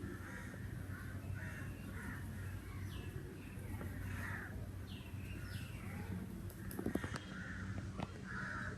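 Crows cawing repeatedly, harsh calls one after another, with a few thinner higher calls mixed in.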